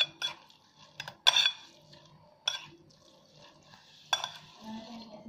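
Forks and a spoon clinking and scraping against a large bowl as noodles are mixed: a handful of sharp, ringing clinks at irregular intervals, with soft stirring and scraping between them.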